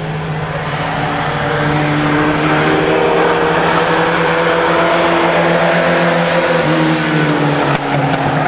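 Engines of several mini pickup race trucks running at speed together in a pack, a steady mix of engine notes whose pitches shift slightly as they change speed.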